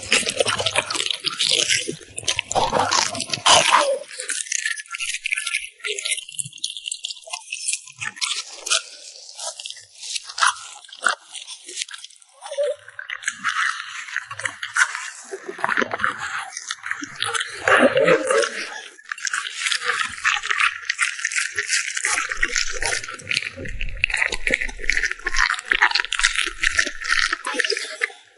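French bulldog chewing its food close to the microphone: a long, quick run of crunchy, wet mouth clicks and smacks, broken by short pauses.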